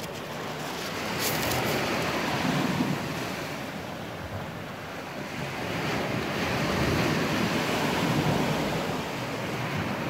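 Sea waves washing on a pebble shore, with wind on the microphone; the noise swells and eases twice.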